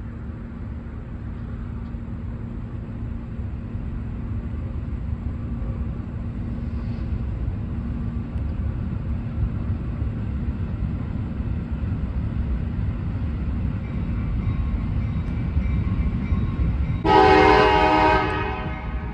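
Delmarva Central Railroad diesel locomotive approaching a grade crossing: a low rumble that slowly grows louder. About two seconds before the end, the locomotive's horn sounds one loud blast of about a second, which then fades.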